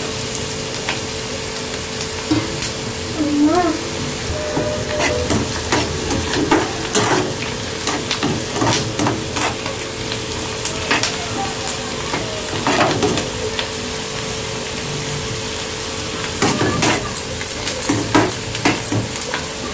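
Chopped onions sizzling in hot oil in a metal pan as they are sautéed until soft, stirred with a metal spatula that scrapes and clicks against the pan at irregular moments.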